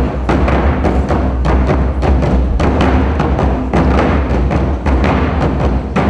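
Korean buk barrel drums struck with wooden sticks in a quick, dense rhythm, several strokes a second, over steady sustained musical tones.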